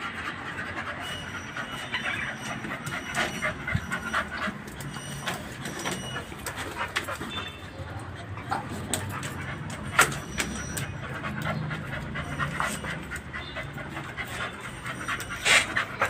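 Dogs panting, with scattered light clicks and knocks; a sharper click about ten seconds in and a few louder ones near the end.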